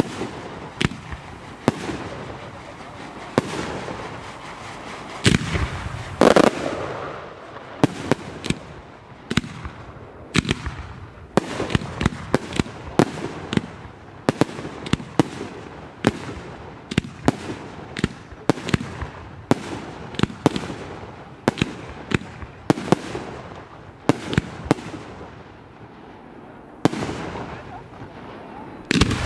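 Aerial firework shells bursting in a rapid, irregular string of sharp bangs, several a second, with one louder, longer burst about six seconds in.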